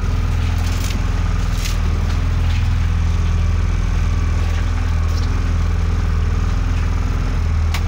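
Engine on a small fishing boat running at a steady idle, a low even hum, with a few light clicks over it.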